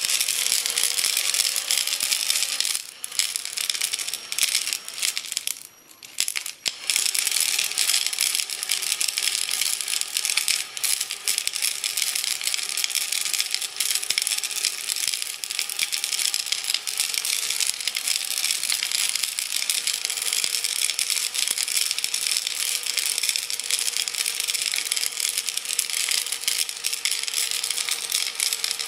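Rocks rattling and tumbling inside a glass jar with some water, spun by a cordless drill working as a homemade rock tumbler, over the drill motor's steady whine. The spinning cuts out briefly twice, about three and six seconds in, then runs on steadily.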